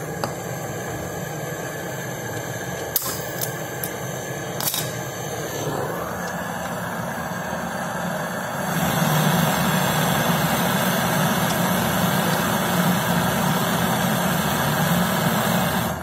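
Handheld gas-canister brazing torch burning with a steady hiss, brazing a filter-drier joint on a fridge's copper tubing. A few sharp clicks come in the first five seconds, the flame gets louder about nine seconds in, and it cuts off suddenly at the end.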